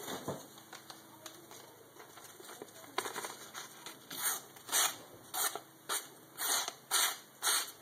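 Knife blade slicing into the edge of a thin paperboard carton: faint handling clicks, then from about halfway a run of about seven short scraping cuts, roughly two a second, shaving the paperboard into a curl.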